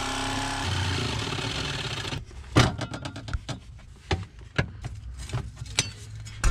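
Corded jigsaw cutting through the steel floor-pan transmission tunnel, running steadily and then stopping abruptly about two seconds in. After it, a string of sharp knocks and clunks as the cut section of tunnel is pushed on by hand and the saw is set down, the loudest just after the saw stops and again near the end.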